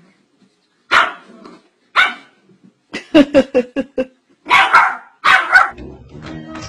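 Small dog barking: a single bark about a second in and another a second later, a quick run of about six short yaps, then two longer loud barks. Music comes in near the end.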